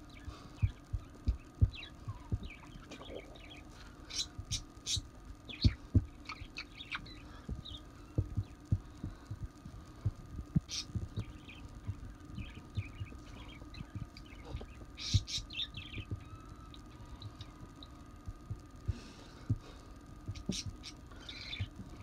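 Irregular soft thumps of a hand tapping on a towel-covered table and a caique hopping about on it during play, with clusters of short high chirps from the caique.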